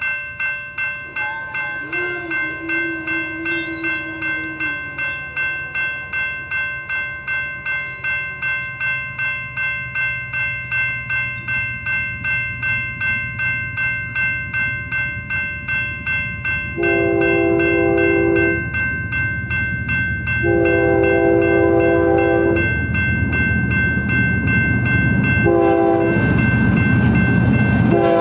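Grade-crossing warning bell ringing about twice a second as a BNSF double-stack train led by GE ES44DC diesel locomotives approaches. The lead locomotive's air horn then sounds the crossing signal: two long blasts, a short one, and a final long one near the end, over the rising rumble of the engines.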